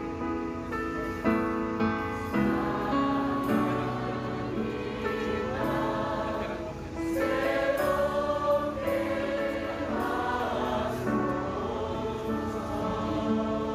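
Amplified live Korean worship song: a woman singing long held notes, accompanied by acoustic guitar and keyboard.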